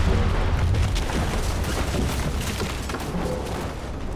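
Tail of a heavy boom sound effect: a deep rumble with a noisy wash above it, slowly dying away.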